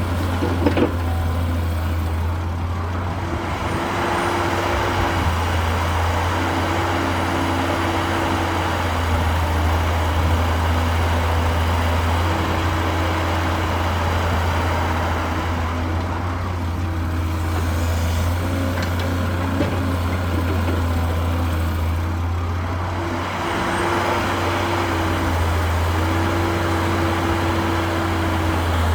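Heavy construction vehicle's diesel engine running steadily, a continuous low drone with a wash of mechanical noise that swells and fades every few seconds.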